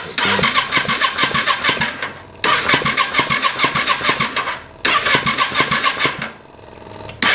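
Yamaha XVS650 V-twin turned over on its electric starter in three bursts of about two seconds each, with a fourth starting near the end, without firing. It is being cranked dry with no fuel in it, to pump fresh oil through the engine after an oil and filter change.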